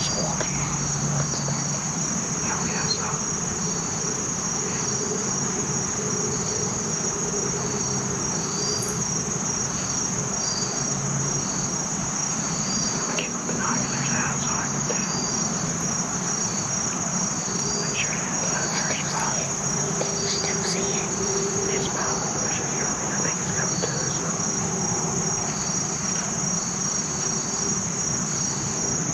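Woodland insect chorus: a steady high-pitched buzz with short chirps repeating about once a second over it.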